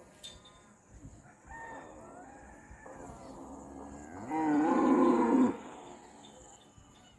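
A cow mooing: fainter lowing, then one loud moo of about a second near the middle.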